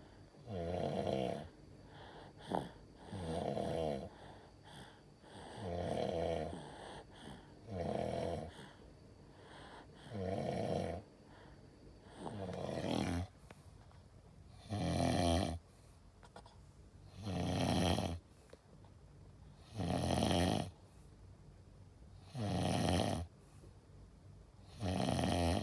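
A baby boy snoring in his sleep: regular snores, one about every two to two and a half seconds, about eleven in all.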